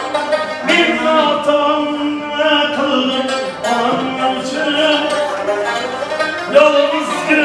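Street musician singing in long, wavering held notes while playing a stringed instrument.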